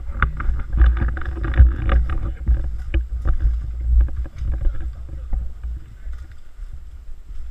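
Footsteps crunching and snapping through dry leaf litter, palm fronds and twigs, in quick irregular cracks. Under them is a steady low rumble of wind and movement on the body-worn action camera's microphone.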